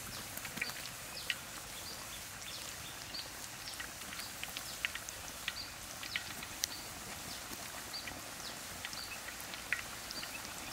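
Battered chicken pieces deep-frying in hot oil in a wok: a steady sizzle with scattered, irregular crackling pops.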